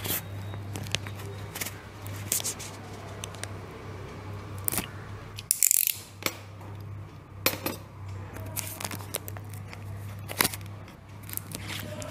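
Box cutter scraping and slicing along the sealed packaging of a cardboard tablet box, with crackling plastic and irregular clicks and scrapes from the handling. A short, sharp hissing scrape stands out about six seconds in, and a steady low hum runs underneath.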